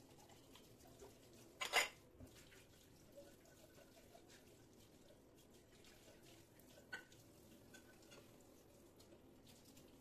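Faint running tap water at a kitchen sink during dish rinsing, with one sharp clink of a dish about two seconds in and a smaller clink near seven seconds.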